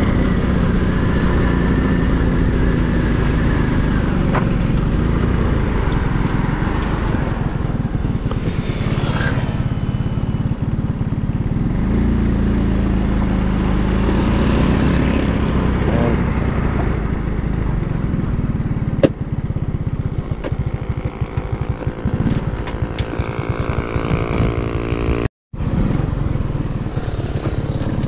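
Motorcycle engine running steadily, with a couple of passing swells of road noise about nine and fifteen seconds in. The sound drops out for an instant a few seconds before the end.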